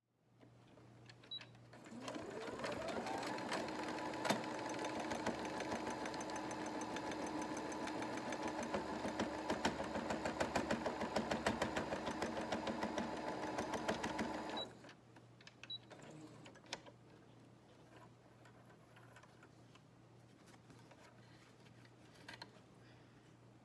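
Brother CS7205 computerized sewing machine stitching through fabric. Its motor whines up to speed about two seconds in, runs steadily with rapid needle strokes for about twelve seconds, then stops abruptly. A few soft clicks of handling follow.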